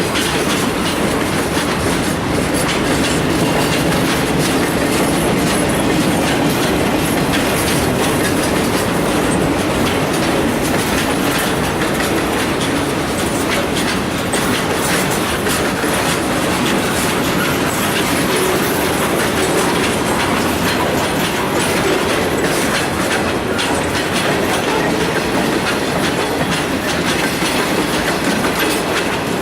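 Long freight train's cars rolling steadily past at a grade crossing, wheels clacking over the rail joints and crossing.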